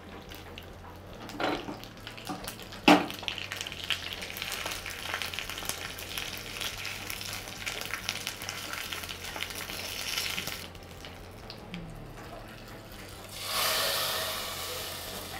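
Curry leaves and whole dried red chillies sizzling in hot coconut oil in a small tempering pan, with a couple of sharp knocks in the first few seconds. Near the end a louder sizzle as the tempering goes into the pot of curry.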